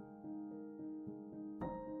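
Soft background piano music: sustained notes ringing on, with a new chord struck about one and a half seconds in.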